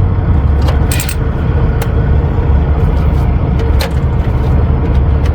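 Steady low rumble of an idling diesel truck engine, with a few sharp metallic clicks and taps from hand tools working on the APU belt tensioner.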